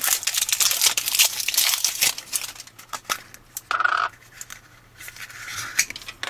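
Plastic shrink wrap crinkling and tearing as it is peeled off a Fashems blind capsule, with a short squeak of plastic just before four seconds in and more crinkling near the end.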